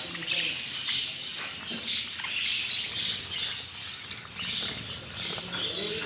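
A flock of caged budgerigars chirping and chattering together, many birds calling over one another in a continuous busy twitter.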